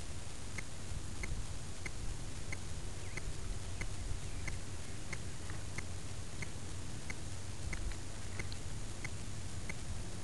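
Short, high ticks repeating evenly, about one and a half a second, over a steady low hum.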